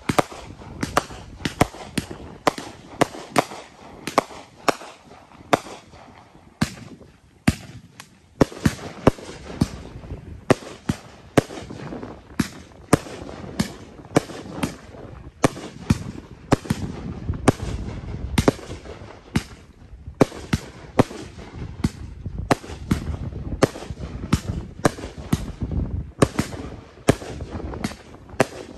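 1.4G consumer fireworks cakes firing in a continuous run, about two sharp reports a second as shots launch and break overhead, with a low rumble building through the second half.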